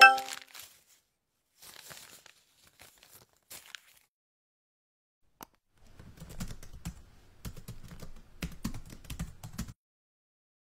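An electronic alert chime dies away at the start, followed by faint paper rustling and crumpling. About six seconds in comes computer keyboard typing, a quick run of key clicks lasting about four seconds that stops about a second before the end.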